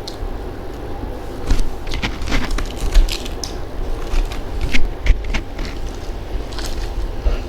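Close-up chewing and crunching of crisp fried food, papad and fritters, in irregular sharp crackles with a few louder crunches.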